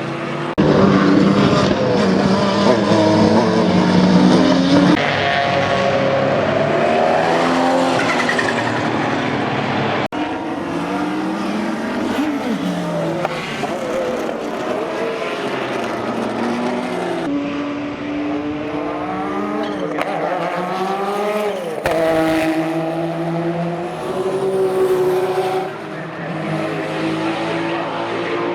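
Porsche 962 race cars with turbocharged flat-six engines passing at speed, engine pitch rising and falling as they accelerate and lift, with turbo flutter on the lifts. Several passes, cut together with abrupt changes.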